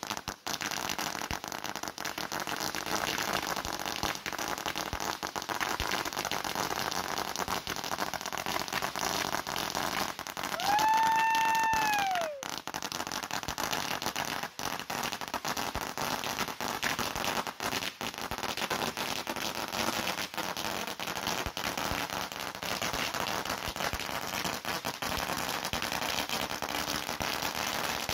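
A 2,000-round firecracker string going off on the ground as a long, unbroken crackle of rapid pops. About ten seconds in, a single drawn-out pitched call lasting about two seconds rises over the crackle.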